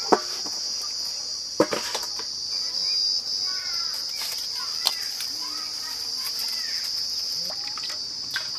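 Steady, high-pitched drone of insects, with a few sharp clinks of stainless-steel utensils: a steel plate set down over a bowl just after the start, and another clink about a second and a half in.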